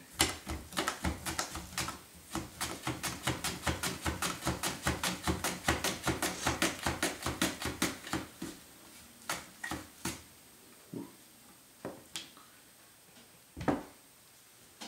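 Red potato sliced on a plastic mandoline slicer: fast, even scraping strokes across the blade, about five a second. After about eight seconds they give way to a few scattered clicks and one louder knock near the end.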